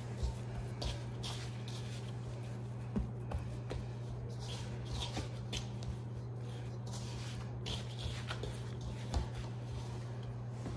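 Hands kneading and rubbing flour into sticky dough in a stainless steel bowl: soft, irregular scuffing with a few light knocks, over a steady low hum.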